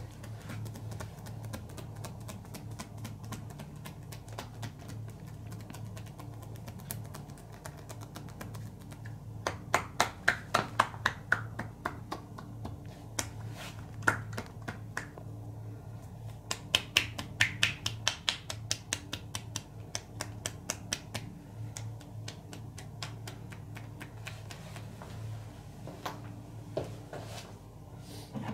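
A masseur's hands striking in quick runs of sharp slaps and snaps, in two fast bursts about a third and two thirds of the way through, with scattered single strikes between. A steady low hum runs underneath.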